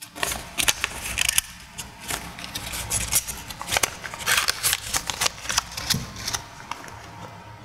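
Small paper fragment packet being folded and creased by gloved fingers: irregular rustling and crisp crackles of the paper.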